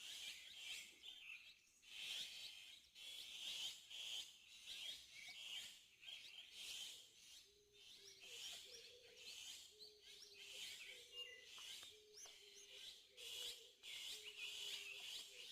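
Faint chorus of many small birds chirping and twittering in a mountain morning. From about halfway, a lower hooting call repeats roughly once a second beneath the chirps.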